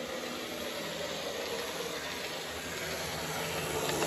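A Lima OO gauge GWR railcar model's motor bogie running at slow speed under DCC control. It makes a steady whirring hum along the track that slowly grows a little louder.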